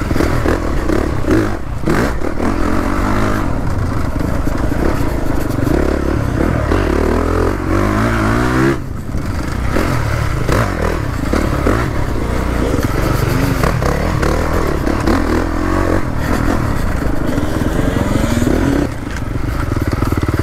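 Dirt bike engine being ridden hard, heard from on the bike, the revs rising and falling with the throttle and dropping briefly about nine seconds in, with rattling from the bike over the rough ground.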